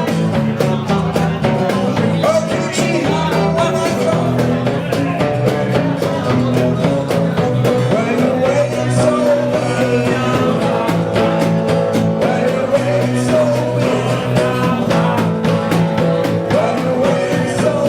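Rock band playing live: drums keeping a steady beat under bass and guitar, with a singer's voice over the top.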